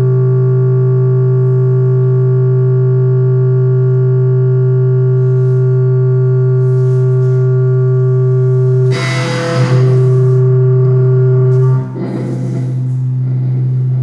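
Sustained distorted drone music: one loud, steady low note held with many overtones. About nine seconds in a harsh noisy burst breaks over it, and from about twelve seconds the drone goes on rougher and a little quieter.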